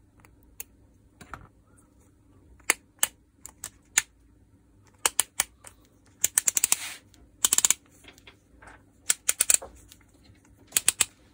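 Sharp metallic clicks and short runs of rapid clicking as the Makita DDF486 drill's metal gearbox housing and its clutch-ball and mode-change parts are handled and worked with a screwdriver.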